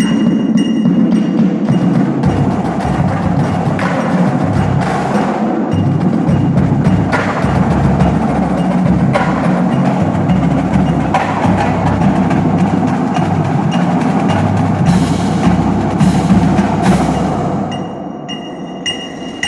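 Marching drumline playing a fast, dense percussion passage: drums hit in quick rhythm with a heavy low bass-drum pulse, thinning to quieter, sparser sharp hits near the end.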